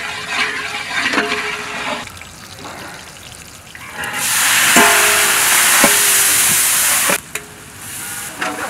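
Onions and green chillies frying in oil in a large metal pot, a metal spatula scraping and clanking against the pot with short rings. About four seconds in, tomatoes tipped into the hot oil set off a loud sizzle that cuts off suddenly after about three seconds.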